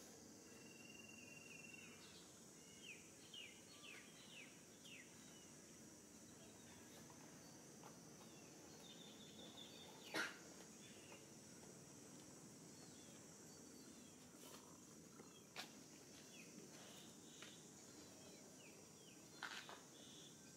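Near silence: faint ambient background with a steady high hiss, a few short, faint chirps, and a single sharp click about ten seconds in, followed by a few softer clicks.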